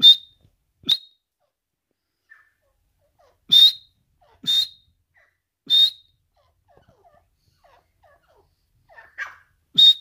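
Grey francolins (teetar) giving short, sharp, high-pitched single-note calls, six of them at uneven intervals, with a softer, lower call just before the last.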